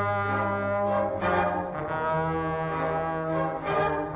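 Brass-led band music playing sustained chords that change every second or so, with a low bass note moving under them.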